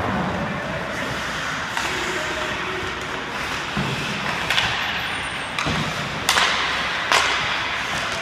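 Ice hockey play: a steady hiss of skates and rink noise, broken by several sharp cracks of sticks and puck, most of them in the second half.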